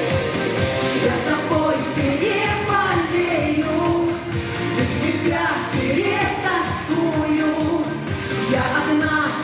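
A song: a voice singing a melody over guitar accompaniment.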